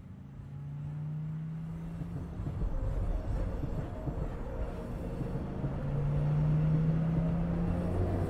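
Low rumble of a car driving on a road, swelling in loudness over the first couple of seconds, with a steady low hum that comes in twice.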